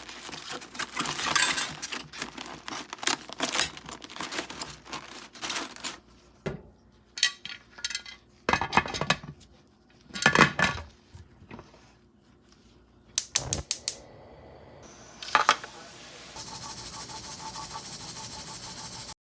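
Metal clattering and clinking as a pressure cooker is loaded and handled: a dense run of small knocks and clicks for the first few seconds, then separate knocks and clinks. A faint steady hiss takes over near the end.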